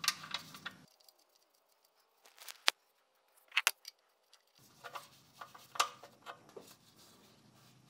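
Scattered small metallic clicks and taps as the oil drain plug is threaded back into the oil pan and an 8 mm Allen wrench is fitted to it and turned, a few of the clicks sharper than the rest.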